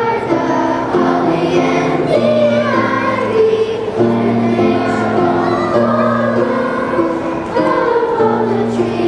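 A children's school chorus singing together, with low, steady accompaniment notes held underneath the voices.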